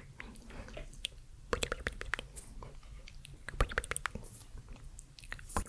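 ASMR mouth sounds close to the microphone: irregular wet clicks and smacks of tongue and lips.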